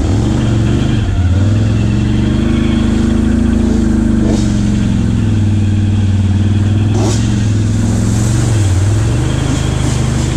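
ATV engine running at a steady throttle while riding a dirt trail, easing off briefly about a second in and again near the end.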